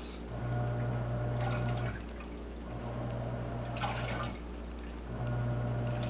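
Haier HLP21N portable washing machine agitating in its wash cycle: the motor hums in three spells of about a second and a half, with short pauses between, while water sloshes in the tub.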